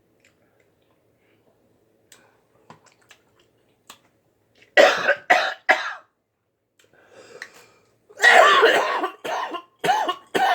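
A woman coughing as food goes down the wrong pipe and chokes her: three quick coughs about five seconds in, then a longer coughing fit near the end.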